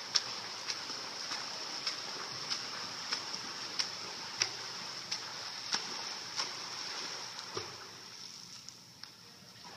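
Freestyle swimmer's arm strokes splashing in a pool, a sharp slap about every two-thirds of a second over a steady background hiss. The strokes stop about three-quarters of the way through and it goes quieter.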